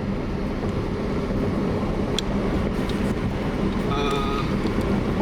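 Steady rumble of tyres and engine heard from inside a moving car on a rough road, with a few small knocks. About four seconds in, a short voice sound rises over it.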